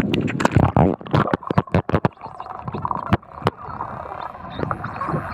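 Underwater sound from a camera held below the sea surface: a muffled rush of water with many irregular sharp clicks and crackles.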